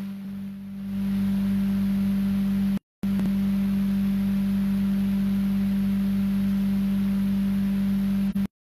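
A steady low-pitched electronic tone, like a hum, holding one pitch at an even level. It breaks off for a moment about three seconds in and cuts off suddenly near the end.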